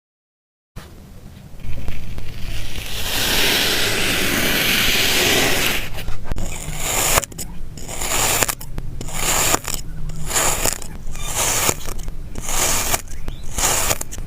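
Slime being worked by hand: a steady scraping, squishing noise for a few seconds, then separate strokes about once a second.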